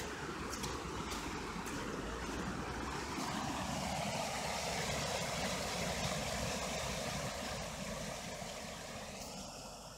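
Small waterfall on a stream, water rushing steadily, growing a little louder a few seconds in and fading away near the end, with a few light clicks in the first two seconds.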